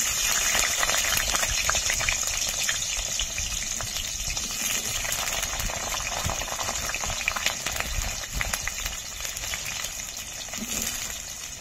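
Potato pieces frying in hot oil in a kadai: a steady sizzle full of fine crackles that starts suddenly and slowly eases off.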